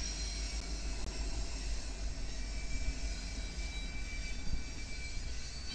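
Diesel locomotives of a freight consist, with a Ferromex EMD SD70ACE in view, rumbling steadily past at low speed. Faint high-pitched tones come in about halfway through.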